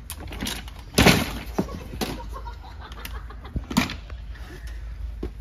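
A wheeled office chair tipping over backwards with a man in it and crashing onto a carpeted floor: a loud thud about a second in, followed by smaller knocks and clatter.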